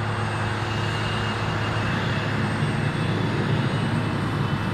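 Aircraft engine noise on the flight line: a steady drone with a low hum and faint high whining tones, unchanging throughout.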